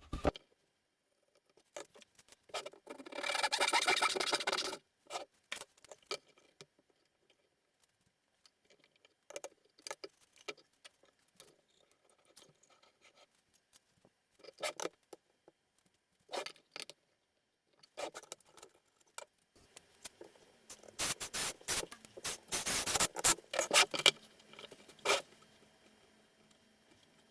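Scattered light clicks and taps, with a short scraping burst about three seconds in and a dense run of clicks and scrapes near the end.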